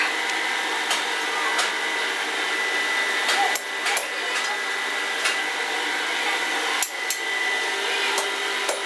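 Blacksmith's hand hammer striking red-hot iron on an anvil: sharp, irregular blows spaced from about half a second to a second and a half apart, over a steady background hum.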